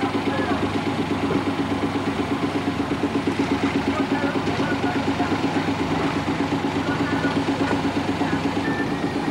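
Small fishing boat's engine idling steadily with a rapid, even chugging beat.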